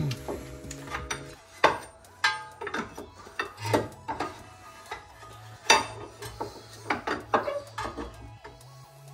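Irregular sharp metal clanks and knocks as a long metal bar is levered against a Mazda Miata's lower suspension arm to pry it down and free the strut.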